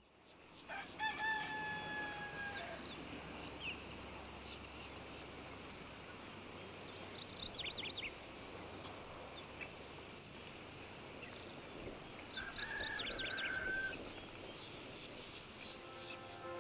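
A rooster crowing: one long held call about a second in. Small birds chirp briefly in the background.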